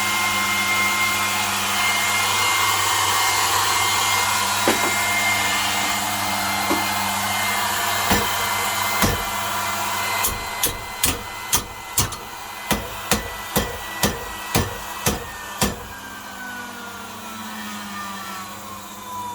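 Sewing machine motor running on 400 V with a steady hum and high whine. About ten seconds in, a series of sharp knocks starts, about two a second, for some five seconds. The whine then falls steadily in pitch as the motor slows.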